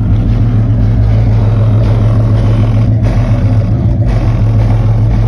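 Kicker L5 Solo-Baric 10-inch subwoofer, powered by an old-school Kicker ZR360 amplifier, playing loud deep bass, heard from outside the car. A steady low note dominates.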